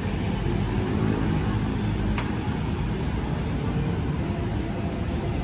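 Steady low rumble of motor traffic, with a faint short tick about two seconds in.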